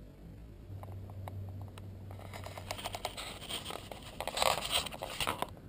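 Dry scraping and crackling made of many small clicks, building through the second half and loudest about four and a half seconds in, then stopping. A faint low hum runs under the first half.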